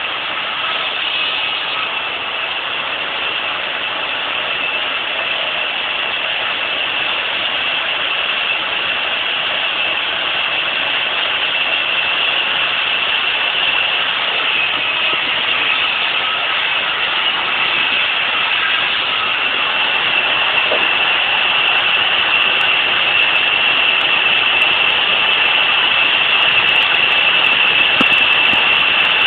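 Large vertical band saw running steadily, a high, even whine that grows slightly louder toward the end.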